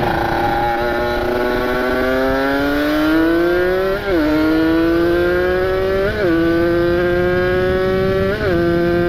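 Ported Kawasaki Ninja RR two-stroke single-cylinder motorcycle engine accelerating through the gears. Its note climbs steadily and drops sharply at three upshifts, about four, six and eight seconds in.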